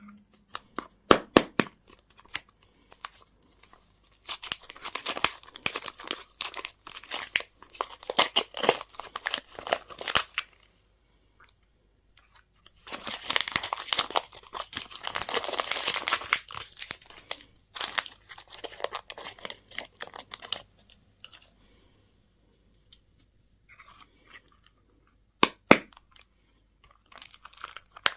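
Candy or toy packaging being torn open and crinkled by hand: long stretches of crackling and tearing with a few sharp clicks, broken by short pauses.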